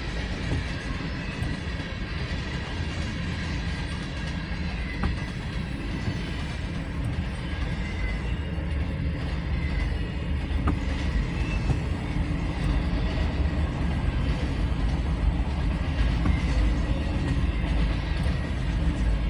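Freight cars of a CSX train rolling past: a steady low rumble of wheels on rail with faint thin high squealing tones and a few sharp clicks, growing a little louder in the second half.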